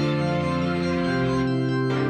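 Background music: held keyboard chords, shifting to a new chord about a second in.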